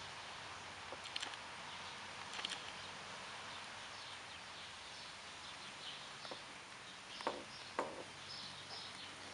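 Steady hiss of light rain with a few short sharp taps and high chirps: one about a second in, another about two and a half seconds in, then two louder ones close together later on.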